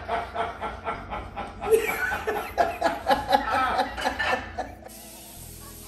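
A woman laughing in quick repeated bursts of chuckling, which cut off suddenly near the end, leaving only faint steady background noise.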